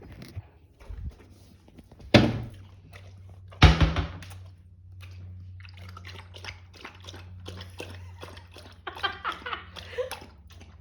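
Two loud thumps, about two and three and a half seconds in, then a dog eating kibble soaked in water: a quick run of wet slurping, lapping and chewing clicks. A low steady hum runs underneath.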